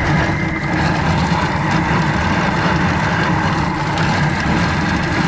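Thermomix kitchen machine running steadily, its motor turning the blades in the lidded mixing bowl.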